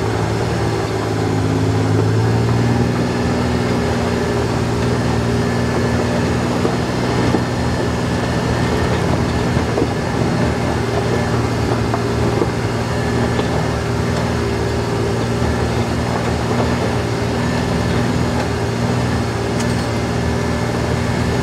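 Kawasaki Mule Pro-FXT side-by-side's three-cylinder gasoline engine running steadily under light load as the vehicle rolls along a dirt trail, heard from inside the cab. Its pitch steps up slightly about two seconds in.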